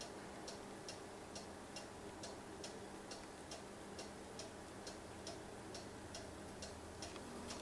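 Faint, even mechanical ticking, a little over two ticks a second, over a low steady hum.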